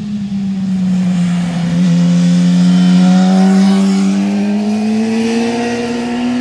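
A vehicle engine passes close by at a hairpin bend. Its pitch drops as it slows into the bend, then climbs steadily as it accelerates out. It is loudest about three seconds in.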